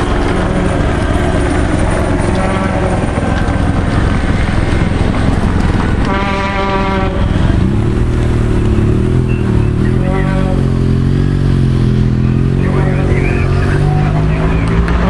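Race convoy vehicles passing close by: car and motorcycle engines that rise and fall in pitch as they go past, over a steady loud rush of noise. Short bursts of voice come every few seconds.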